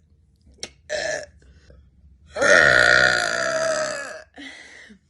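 A woman belching: a couple of short sounds in the first second or so, then one long, loud burp of about two seconds that trails off into a weaker tail.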